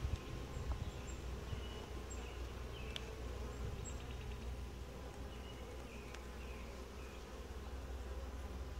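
Honey bee colony humming steadily from an open hive while a frame is lifted out, with a few light clicks from the frame and hive tool.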